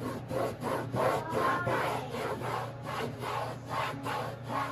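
Repeated hand-rubbing strokes on a textured non-skid fiberglass boat deck, working at hardened carpet adhesive. About three strokes a second.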